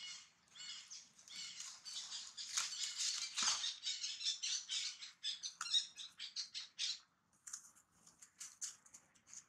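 Dry leaf litter rustling and crunching in quick, irregular bursts as long-tailed macaques move and scuffle on it, busiest in the first seven seconds and sparser near the end, with a dull thump about three and a half seconds in.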